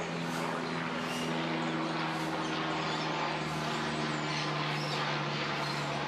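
A steady low machine hum holding a few even tones, over a constant hiss.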